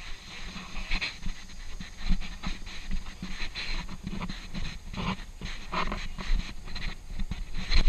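Rhythmic heavy breathing close to a body-worn camera, about one breath a second, over a steady patter of footsteps on a paved path and knocks and rubbing from the camera mount as the wearer walks.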